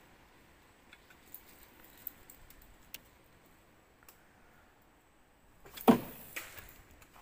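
Small scattered clicks and ticks of a spinning rod and reel being handled, then a loud knock with rustling about six seconds in, followed by a smaller one.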